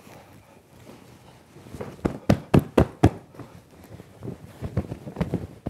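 Soft thumps of a stuffed fabric cushion being patted and handled: a quick run of about five thumps a couple of seconds in, then a few lighter ones near the end.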